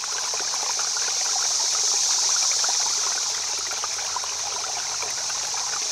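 Steady sound of a small stream running over stones, a constant hiss with small trickling splashes.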